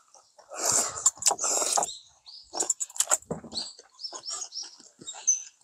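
Ramen noodles slurped in a long noisy pull about half a second in, the loudest part, then chewing with many short wet smacks and clicks of eating.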